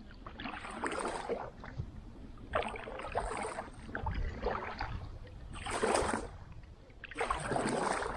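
Kayak paddle strokes: the blades dip and pull through the water in four splashing strokes, about one every two seconds.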